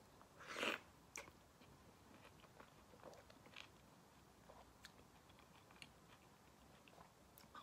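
A person biting into a juicy Cara Cara orange wedge, with one louder bite about half a second in, then faint chewing with small scattered wet clicks.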